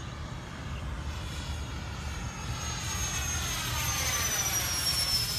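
Electric ducted fan of an HSD Super Viper RC jet (JP 105 mm all-metal fan on 12S) whining in a flyby. It grows louder as it comes near, and the whine drops slightly in pitch about four and a half seconds in as it passes.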